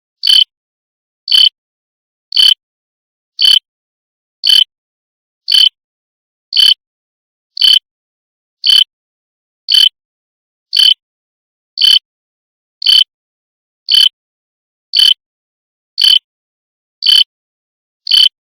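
Digital alarm clock chirping: short, high-pitched electronic beeps, about one a second, evenly spaced with silence between.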